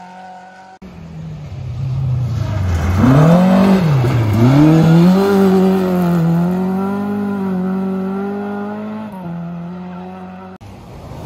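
Rally car passing at speed with its engine revving hard. The engine note swoops up and down twice as the car nears, then holds high and fairly steady as it goes by, fading near the end.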